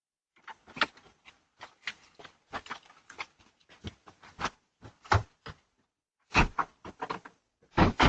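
A run of irregular knocks and clatters, some two dozen sharp hits with the loudest clusters about five, six and a half and eight seconds in.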